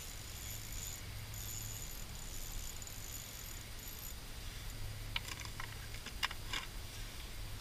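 Light clicks and rattles of an ice-fishing rod, spinning reel and tackle being handled, in a short cluster about five to six and a half seconds in, over a steady low rumble.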